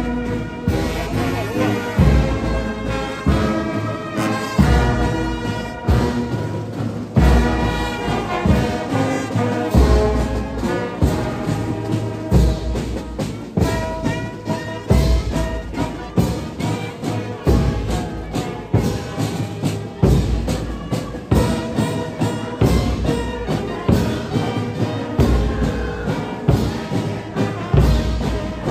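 Orchestral background music with brass over a slow, deep recurring beat.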